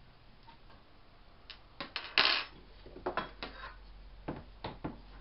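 Hand tools and small metal parts of a hedge trimmer being handled on a workbench: scattered clicks and knocks, with a louder rattling clatter about two seconds in.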